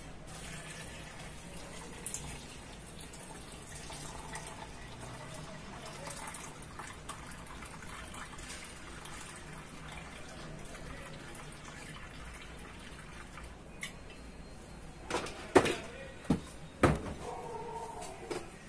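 Water poured steadily from a plastic jug into a plastic measuring jug of thick soap base, topping it up to 1000 mL. Near the end come a few sharp knocks.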